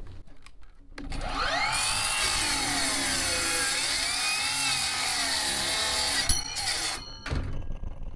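Mitre saw spinning up and cutting through aluminum square tubing, the motor's whine sagging and recovering under load, with a sharp high hiss while the blade is in the metal. It stops at about seven seconds in.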